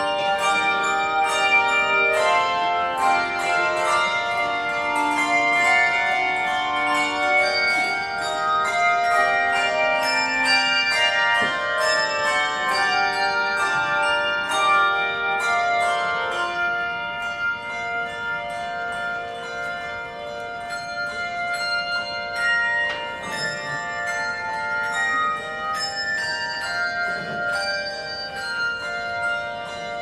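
Handbell choir playing a hymn arrangement: many bell notes struck together in chords and left to ring. It grows softer about halfway through.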